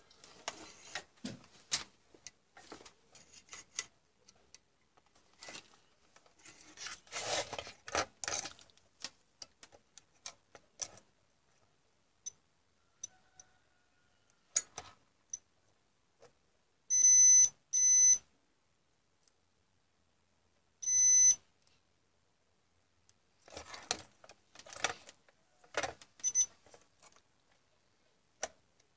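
Digital multimeter's continuity buzzer beeping three times, about half a second each: two beeps close together, then a third a few seconds later. This is the sign that the test probes have touched a connected, low-resistance path. Light clicks and scrapes of metal probe tips on a circuit board come between the beeps.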